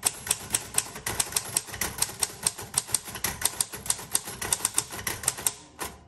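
Typing on a 1936 Royal Model O portable typewriter: a quick, even run of type-bar strikes on the platen, several a second, that stops shortly before the end.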